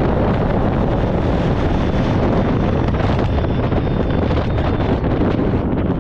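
Caterpillar D2 crawler tractor's diesel engine running loud and steady, with wind buffeting the microphone.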